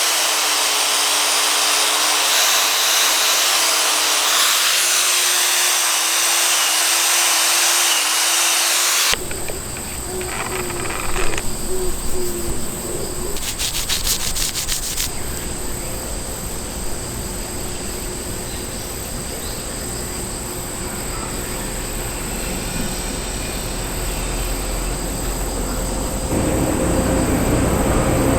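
Workshop power tool running with a loud hiss and a steady, slightly wavering hum. About nine seconds in it cuts to a different, steadier tool noise with rubbing and a short run of rapid clicks.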